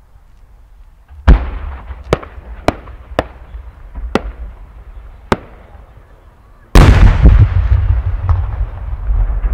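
A No. 10 (about 30 cm) Japanese aerial firework shell with rising effects. A first loud bang comes about a second in, followed by five sharp cracks spread over the next four seconds from the small bursts on its climb. Near seven seconds the main shell bursts with a deep, loud boom and a long rolling echo.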